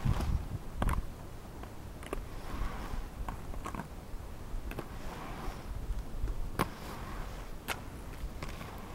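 Inline skates rolling on a concrete half-pipe, with several sharp clacks of the skates striking the ramp and its metal coping, over a rumble of wind on the microphone.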